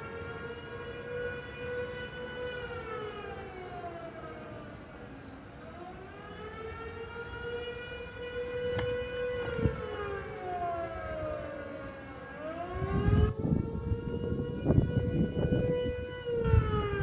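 Siren wailing, its pitch slowly rising, holding and falling in about three long cycles. From about two-thirds of the way in, loud rumbling noise on the microphone joins it.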